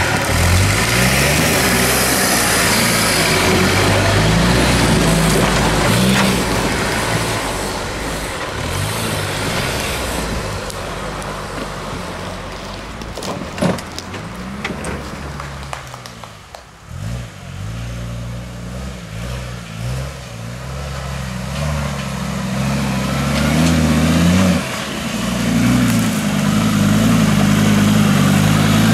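Modified off-road 4x4 engines revving up and down under load as the vehicles crawl over rocks and rough forest track, the pitch rising and falling with the throttle. A single sharp knock about halfway through, and the engine noise drops away briefly just after before building again loudly near the end.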